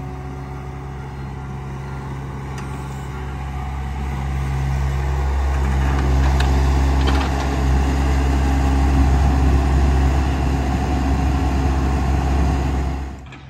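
Diesel engine of a John Deere 60G compact excavator running steadily. It grows louder about four seconds in as the machine swings and works under load, backfilling dirt.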